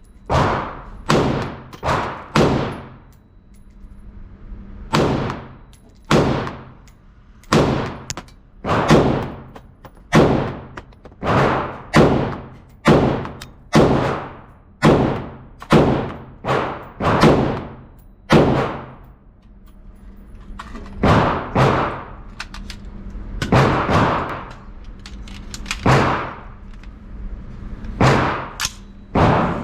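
AR-15-style rifle firing in semi-automatic, about thirty single shots spaced roughly half a second to a second apart, in strings broken by short pauses, each shot ringing out briefly.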